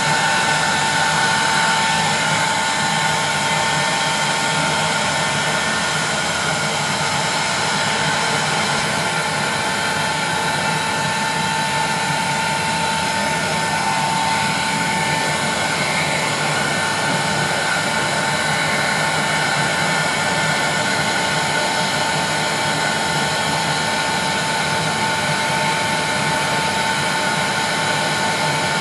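Electric heat gun running steadily on its 1200-watt high setting, a blowing rush with a steady whine, as it heats the face of a CRT to work the air pockets out of its cataracted bonding layer.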